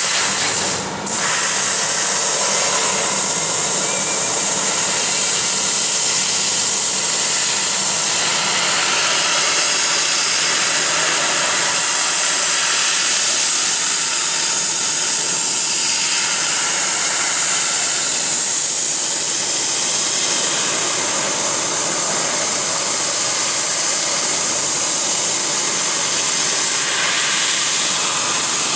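HT-1325 CO2 laser cutting machine cutting sheet metal: a loud, steady, high hiss of the assist-gas jet at the cutting head, with a brief dip about a second in.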